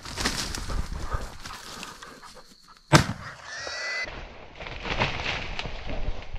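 Footsteps and rustling through grass, with a single very loud, sharp gunshot about three seconds in, followed by a short high-pitched cry.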